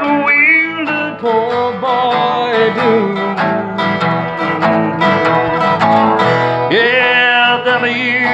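Blues song accompanied on a resonator guitar, in a passage between sung lines, with bending melody notes near the start and again about seven seconds in.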